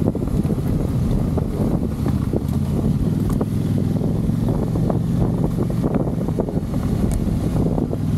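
Motorcycle engine running steadily under way, with wind buffeting the microphone and scattered short clicks throughout.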